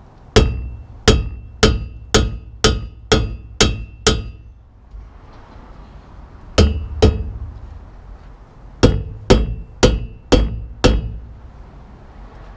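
Rubber mallet striking a cosmetic roll bar in a Miata, about fifteen sharp blows with a short ring. The blows come in three groups: eight in quick succession, two, then five. They are meant to knock the bar loose from the sealant holding it down.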